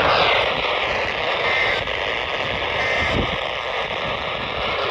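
Steady radio static hiss from a receiver with no station coming through, with wind buffeting the microphone underneath.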